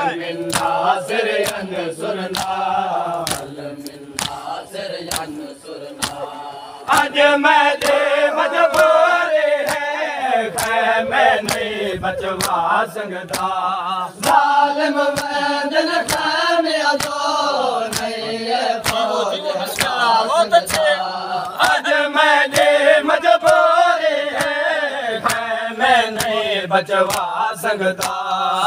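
A group of men chanting a Shia nauha in unison, kept in time by an even rhythm of hand slaps on their chests (matam). The chanting drops quieter for a few seconds and swells again about seven seconds in.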